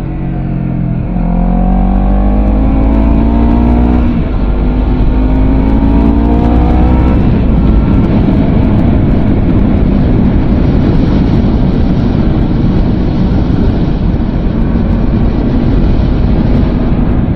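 Honda CBR250RR parallel-twin engine and exhaust pulling hard through the gears, its pitch climbing twice with sharp drops at upshifts about a second and about four seconds in. After about seven seconds a steady rushing noise covers the engine.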